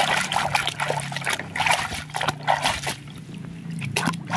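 Muddy water sloshing and splashing in a plastic tub as a hand swishes a small plastic toy bus back and forth to wash it, easing off briefly about three seconds in.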